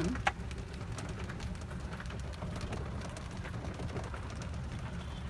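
Small open utility cart rolling along a gravel path: a steady low rumble with light crackling from the tyres, and one sharp click about a third of a second in.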